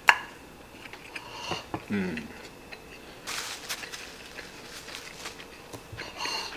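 Eating sounds: a spoon clicking and scraping against a ceramic plate of fried rice, with a sharp click at the start and small taps after. A short falling hum about two seconds in, and a brief hiss a little after three seconds.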